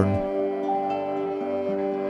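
Soft background music with steady held notes, a note changing once or twice.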